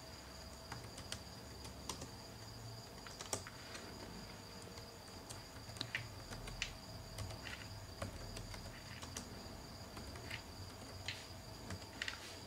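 Computer keyboard keys being typed one at a time: irregular clicks, roughly one a second. Under them runs a steady high-pitched whine and a low hum.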